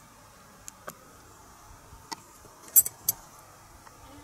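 Light metal clicks and taps from small machined aluminium slingshot-rifle parts being handled: a few scattered clicks, with the sharpest clatter just before three seconds in.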